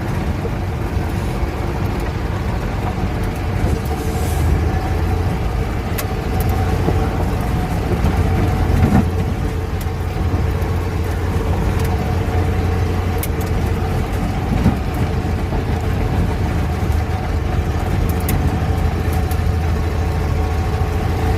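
Steyr-Puch Haflinger's air-cooled flat-twin engine running steadily under load while driving in four-wheel drive over a rough farm track, with a few sharp knocks from the bumps.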